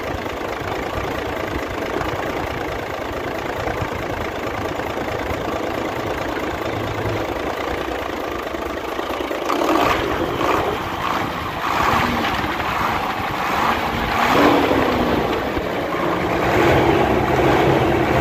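Nissan FE6 six-cylinder diesel truck engine idling steadily, growing louder and rougher about ten seconds in. The mechanic takes the engine for having back compression (blow-by), with a fault at the number-one piston.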